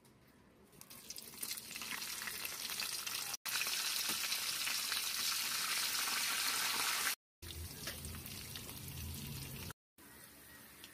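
Hot oil sizzling in a metal kadai as a tempering of mustard seeds, split lentils and dried red chillies fries, then curry leaves go in. The sizzle builds to a loud, steady hiss in the middle, breaks off abruptly a few times, and is quieter near the end.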